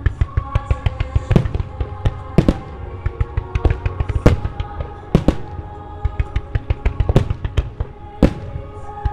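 Starmine fireworks display: a rapid run of sharp bangs from shells launching and bursting, several a second, with heavier bangs every second or two. Music with held tones plays underneath throughout.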